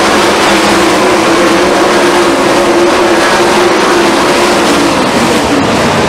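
A pack of 410 sprint cars racing on a dirt oval, their methanol-burning 410 cubic-inch V8 engines running hard together in a loud, continuous din, the pitch dipping slightly about five seconds in.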